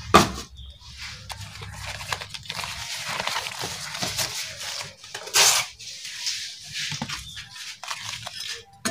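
Banana leaves rustling and crackling as they are handled and folded into parcels, with a sharp click just after the start and a louder crackling tear about five seconds in.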